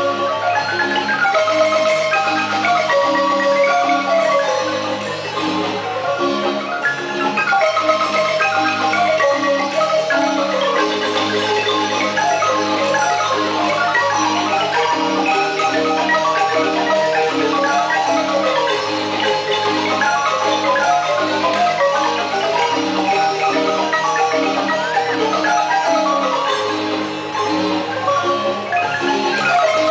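Chiapas marimba ensemble, six players on wooden-keyed marimbas, playing a lively piece without pause. Quick melodic runs rise and fall over a steady, repeating bass line.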